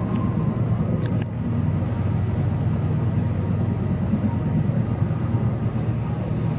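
Steady low rumble of background noise in a large hall, with a couple of faint clicks about a second in.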